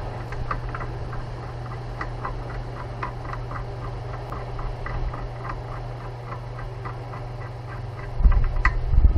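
Rapid, even mechanical clicking, about four clicks a second, over a steady low hum, giving way to heavier knocks about a second before the end.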